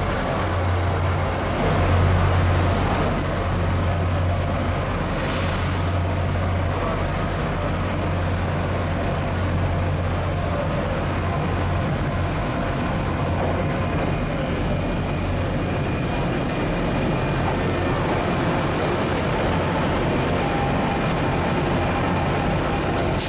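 NJ Transit diesel locomotive idling with a steady low hum, then an Arrow III electric multiple-unit commuter train rolling past, its wheels running on the rails.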